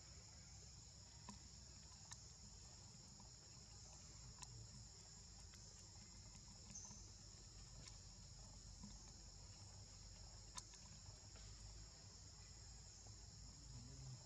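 Faint, steady, high-pitched insect chorus, with a few faint scattered clicks.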